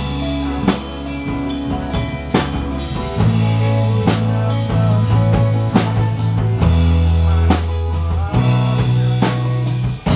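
A rock band playing: drum kit with bass drum and snare strokes, long bass-guitar notes that shift a few times, and strummed acoustic guitar through an amplifier.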